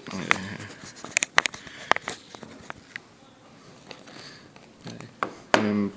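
Handling noises from a cardboard tablet box and its paper seal sticker being pulled open by hand: several sharp clicks and light rustles in the first few seconds, then only faint rustling.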